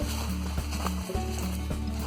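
Background music: deep held bass notes that change in steps, with light percussion.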